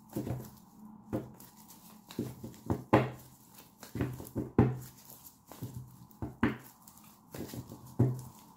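Tarot cards shuffled by hand, the deck slapping and tapping in short, sharp bursts at an irregular pace of roughly one or two a second.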